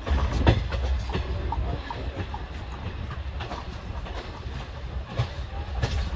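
Coach wheels of a moving passenger train rumbling over the track, heard close from the train's open doorway, with irregular sharp clacks as the wheels cross rail joints. The loudest clack comes about half a second in.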